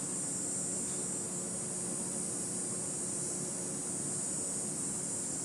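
Handheld propane torch burning with a steady hiss, its flame held on a thick plastic panel to heat and soften it.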